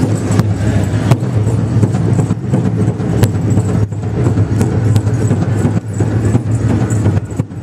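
Powwow drum group beating a large drum and singing a fast fancy-dance song, heard as a loud, dense wash of drumming and voices.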